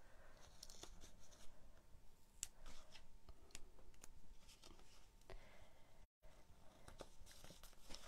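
Faint rustling and scattered small clicks of double-sided adhesive tape being torn off and pressed onto folded cardstock by hand.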